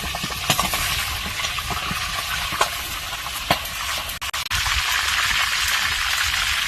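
Food frying in hot oil with a steady sizzle, and a few sharp clicks of a utensil against the pan as it is stirred.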